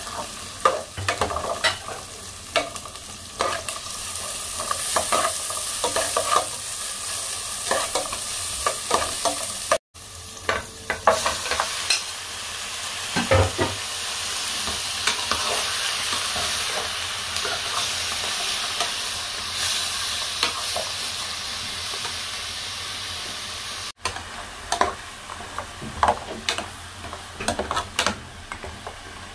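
Sizzling of onion, garlic and ginger sautéing in oil in a metal pot, with a metal ladle scraping and clicking against the pot. About ten seconds in, pork spare ribs are in the pot and their sizzle runs louder and thicker for a stretch as they are stirred, with the ladle knocking against the pot.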